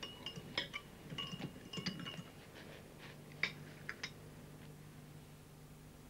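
Light clinks of a knife and crockery, several in the first four seconds, a few ringing briefly, over a faint steady low hum.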